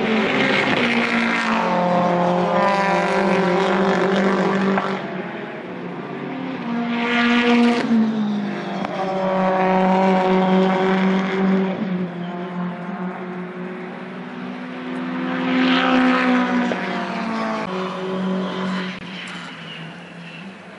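British Touring Car Championship race cars running on track at speed, several coming past one after another. Each engine note swells and fades as its car goes by, and the sound dies away near the end.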